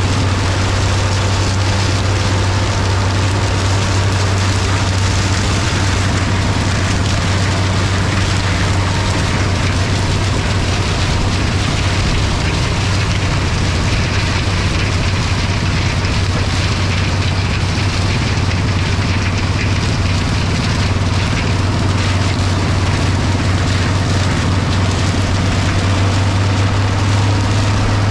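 International 1256 tractor's turbocharged diesel running steadily under load while it pulls an International 40 stalk chopper through corn stubble. An even hiss from the chopper shredding the stalks lies over the engine's low drone.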